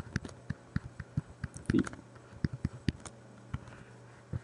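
Stylus tapping on a tablet screen while numbers are handwritten: a run of irregular light clicks, with one louder knock a little under two seconds in.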